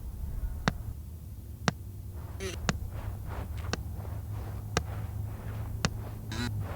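Sharp ticks about once a second over a steady low hum, with a few short creaking squeaks and faint scratchy rustling in between: a layered, designed soundscape.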